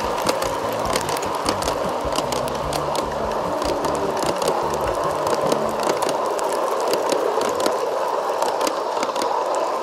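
Garden-railway freight cars rolling past on metal track: a steady rumble of wheels with many sharp clicks as the wheels cross rail joints.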